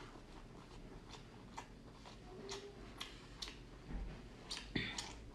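Mouth sounds of chewing king crab leg meat: scattered soft, wet clicks and smacks, irregularly spaced.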